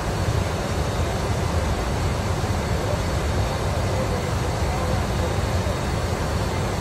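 Steady rushing cabin noise in a Gulfstream G550 cockpit in flight: airflow and engine noise with a faint high whine, level throughout.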